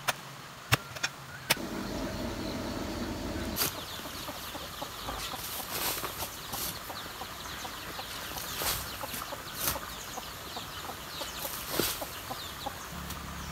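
A garden hoe chopping into loose clay soil, heard as scattered dull strikes a second or two apart. Faint bird chirps come through the outdoor background, and a steady low hum lasts about two seconds near the start.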